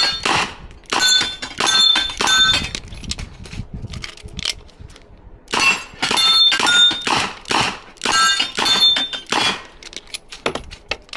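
Smith & Wesson revolver firing rapid shots at steel targets, each hit answered by the ring of a struck steel plate. There are two quick strings of shots with a pause of about two seconds of lighter clicks between them. Near the end come softer metallic clicks as the revolver is handled for reloading.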